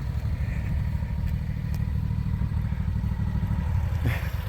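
Riding lawnmower's small engine running steadily, a low rumble of quick, even firing pulses that eases a little near the end.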